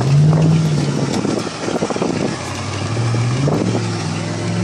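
2010 Chevy Avalanche's 5.3-litre V8 revving up and down as the truck churns through mud with the traction control off, with mud and water spattering against it.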